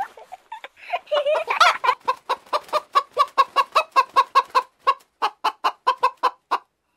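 Hen clucking: a fast run of short clucks, about five a second, after a couple of drawn-out calls.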